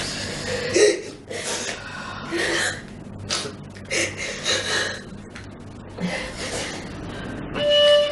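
Women sobbing, with gasping breaths and sniffling in uneven bursts, weeping in grief. Near the end, violin music comes in.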